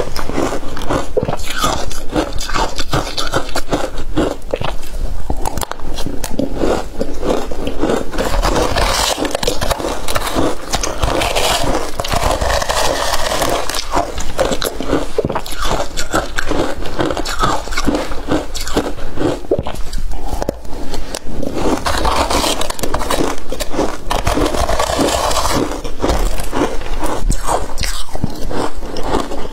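Close-miked crunching and chewing of crushed matcha ice, mixed with a metal spoon scraping and scooping the ice in a plastic bowl.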